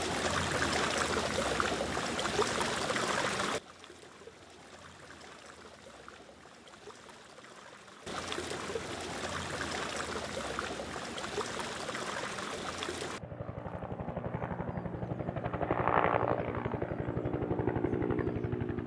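Water running and trickling as a steady rush that drops to a quieter level for about four seconds, then returns. About two thirds of the way through it gives way to a duller, steady hum with a fast, even flutter.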